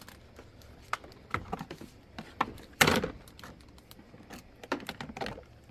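Plastic parts of a toy kitchen being handled and fitted together: scattered clicks and knocks, the loudest a little under three seconds in.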